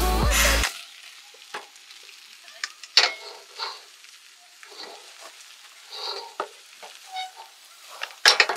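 Scattered sharp clicks and taps with short, soft scraping sounds in between, after music cuts off about half a second in; the loudest clicks come about three seconds in and just before the end.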